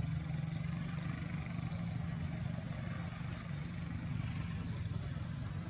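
A steady low mechanical hum without distinct events, like an engine running.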